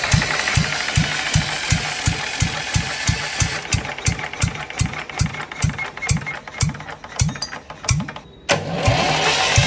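Air-cooled Eicher diesel engine running slowly just after a repair, knocking out about three heavy thumps a second over a hiss. The hiss fades from about four seconds in, dips briefly, and returns abruptly near the end.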